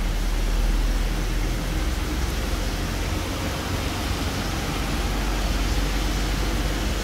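Steady hiss of rain and tyres on a wet road, over the low engine rumble of a heavy crane truck driving past.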